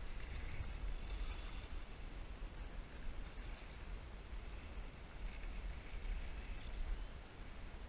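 Fly reel's drag buzzing in two spells, for about a second and a half at the start and again about five seconds in, as a hooked Atlantic salmon pulls line off the reel, over a steady low rumble of river current and wind on the microphone.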